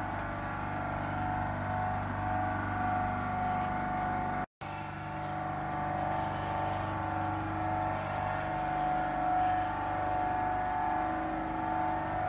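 Steady hum of factory machinery, with several held tones over a low drone. It breaks off for a moment about four and a half seconds in.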